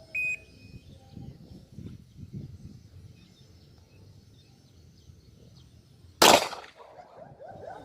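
A shot timer's short electronic beep, then about six seconds later a single handgun shot, sharp and loud with a brief echo.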